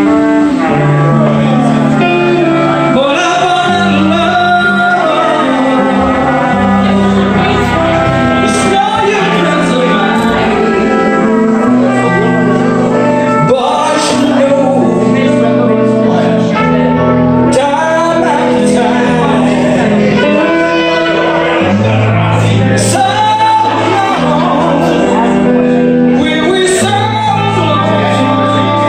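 Live band playing loud amplified blues on electric guitars with a trumpet, a man singing along.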